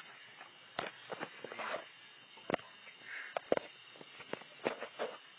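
Fire crackling, with irregular sharp pops and snaps, over a steady high-pitched chirring like crickets.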